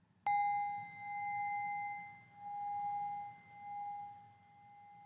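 A metal singing bowl struck once about a quarter second in, then ringing on with one clear tone whose loudness swells and fades in slow waves as it dies away.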